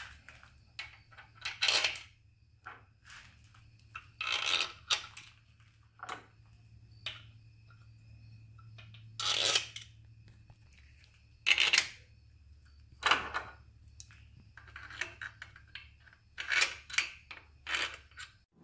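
Irregular sharp metallic clinks and clicks of steel bolts and hand tools being handled and set against the engine's bearing caps, some of them briefly ringing, over a faint steady hum.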